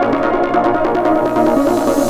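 Electronic dance music from a DJ mix: sustained synth chords over a steady beat. The treble gradually opens up in the second half.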